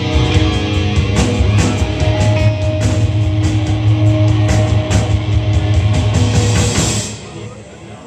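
A live rock band plays loud with electric guitar, bass and drums, including many cymbal hits. The band stops abruptly about seven seconds in, ending the song.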